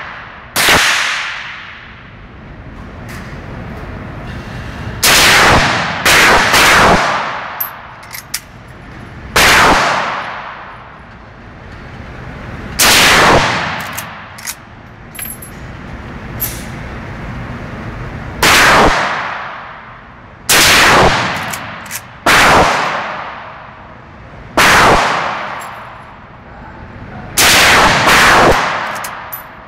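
Rifle shots at an indoor range, about a dozen spaced irregularly a second to several seconds apart, each with a long echoing decay off the concrete walls. Light metallic clicks of the action being worked come between some of the shots.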